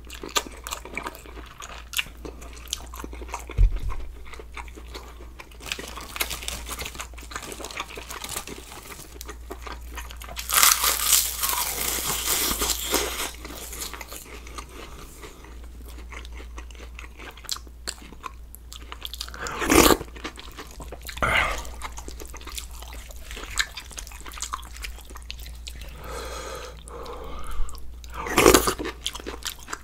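A person eating: chewing and crunching bites, with many small clicks and smacks. About a third of the way in comes a louder noisy stretch lasting a couple of seconds, and there are a few louder single sounds later.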